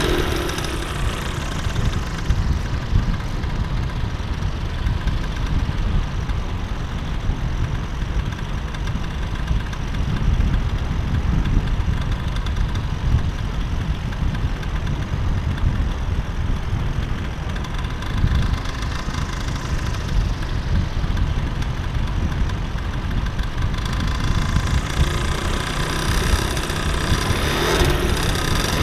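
Paramotor engine and propeller running in flight, heard over heavy wind rumble on the microphone. The engine's higher tones fade after the first second, leaving mostly wind noise, and come back over the last few seconds.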